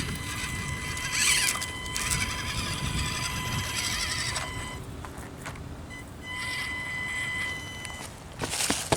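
Axial SCX24 micro RC crawler's small electric motor and gearbox whining as it crawls up a steep boulder; the high steady whine stops about four and a half seconds in and comes back from about six to eight seconds, with a few sharp clicks near the end.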